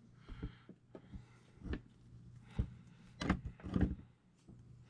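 Small parts of an RC truck axle and differential clicking and knocking softly as they are worked together by hand, with two louder thuds a little past the middle. A faint steady hum runs underneath.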